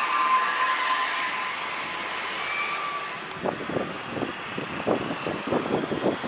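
Airbus A320 jet engines at takeoff power during the takeoff roll and rotation: a steady rushing noise with a high whine that fades over the first couple of seconds. About halfway in, an uneven, choppy noise in the mid range joins it.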